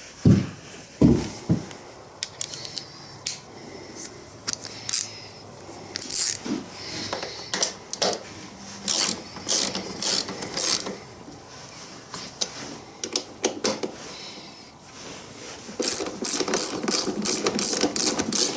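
3/8-inch-drive socket ratchet with a 10 mm socket clicking in short, irregular runs as bolts are turned, with a fast run of clicks near the end.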